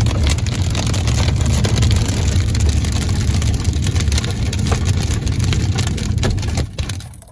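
Strong wind buffeting the microphone: a steady, loud low rumble with scattered crackles.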